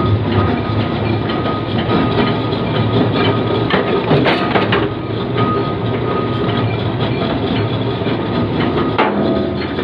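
Forging-shop machinery running loudly, a dense continuous clatter of metal knocks over a steady hum.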